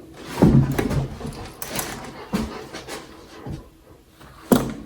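A dog making short noises and panting close to the microphone, among several sharp knocks and clicks, the sharpest near the end.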